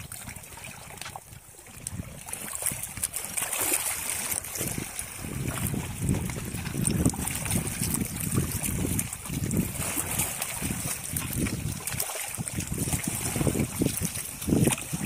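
Seawater washing and trickling among shore rocks in uneven surges, with wind noise on the microphone.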